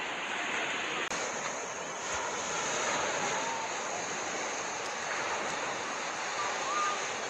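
Steady rush of sea water with wind, holding level without breaking surges. Faint voices come in briefly near the end.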